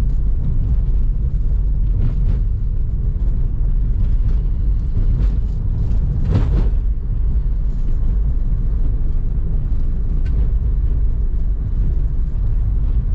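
A car driving, heard from inside its cabin: a steady low rumble of engine and road noise, with one brief louder swell about six and a half seconds in.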